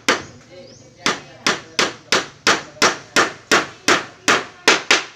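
Hammer driving a nail into a wooden bed slat: one blow, a short pause, then a steady run of about a dozen blows, roughly three a second.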